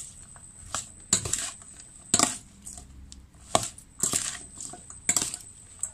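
Metal spoon tossing shredded mango salad in a stainless steel bowl: repeated scrapes and clinks of the spoon against the bowl with the rustle of the wet shreds, roughly once a second.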